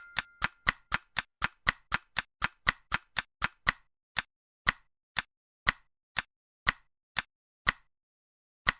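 Ticking sound effect of sharp, evenly spaced clicks that slow down: about four a second at first, dropping to about two a second a little under four seconds in, then toward one a second near the end.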